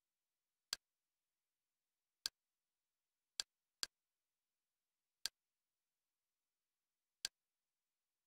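Six short, sharp clicks against dead silence, irregularly spaced with two close together near the middle, as a media-centre menu is clicked through.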